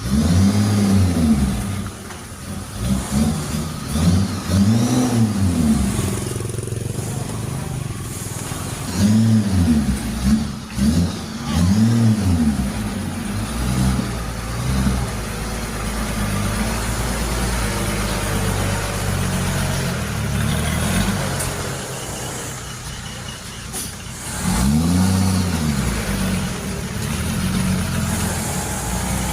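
Heavy diesel engine revving up and back down in short blips, about a second each, several times, with steady idling running between them.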